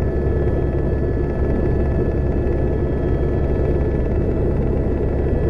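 Helicopter flying overhead: a steady low rumble with a faint, even high whine above it.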